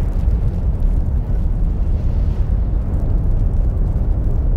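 A steady, loud, low rumbling noise with no distinct bangs or pitched tones.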